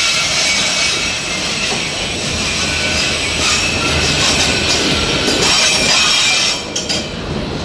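Freight train of enclosed autorack cars rolling past close by: a steady loud rush and rattle of steel wheels on rail, with thin high squealing tones over it. The sound drops briefly near the end.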